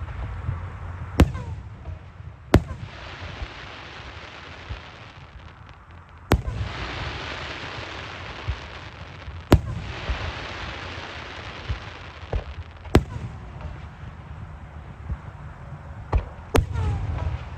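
Aerial fireworks bursting one after another: six sharp booms about three seconds apart, several followed by a few seconds of crackling hiss. A steady low rumble runs underneath.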